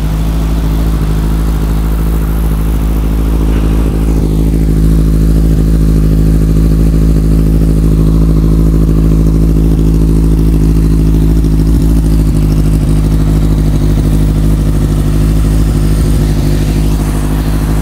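Kawasaki Z1000SX's inline-four engine idling steadily through an aftermarket Akrapovic carbon silencer, left running to warm up after a start.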